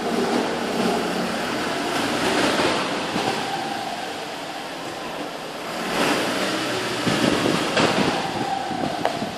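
BMW 316ti with the engine running and the clutch pedal being pressed, giving the odd knocking 'clock clock' noise. It comes in two stretches of rustling mechanical noise with a few sharp knocks, the clearest near the end.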